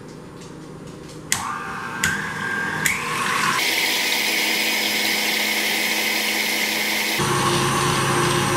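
KitchenAid Classic stand mixer running its wire whip through heavy cream to make whipped cream. The motor starts about a second in and its steady whine climbs in steps as the speed is turned up, then changes abruptly to a lower tone near the end.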